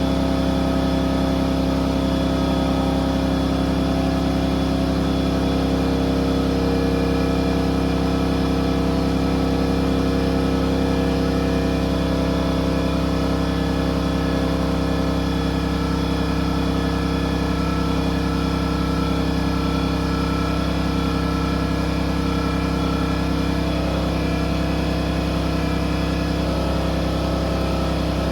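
A motor-driven machine runs steadily at a constant speed, giving an even hum with several steady tones and no change in level.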